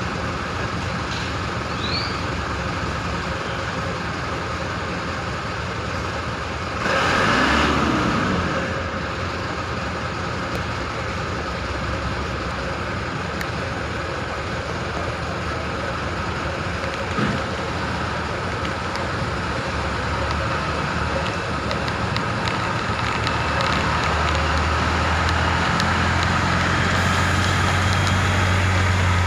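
Heavy diesel truck engine running steadily while working a concrete pour. About seven seconds in, a vehicle passes close with a falling pitch, and toward the end the engine grows louder with a stronger low hum.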